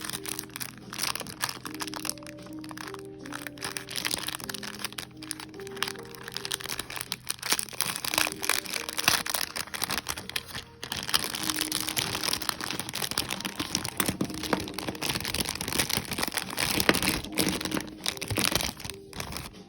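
Packaging being handled and opened, with dense crinkling, crackling and clicking that gets busier about halfway through, over soft background music with a gentle melody.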